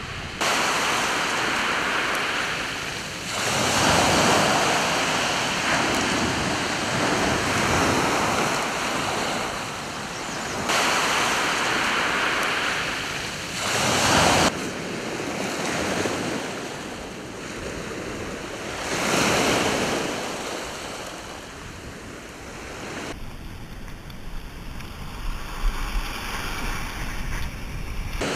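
Waves breaking and washing up a pebble beach, with wind gusting on the microphone; the surf swells and fades every few seconds. In the last few seconds the surf drops back behind an uneven rumble of wind on the microphone.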